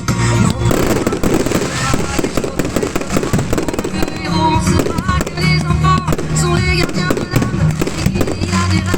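Fireworks bursting and crackling in quick succession, over a pop song with singing.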